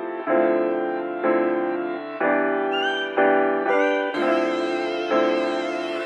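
Slow instrumental background music: sustained chords struck about once a second, each fading before the next.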